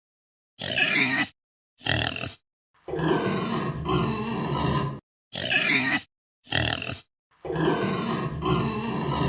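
Pig grunting: two short calls and then a longer run of grunts, the same sequence heard twice.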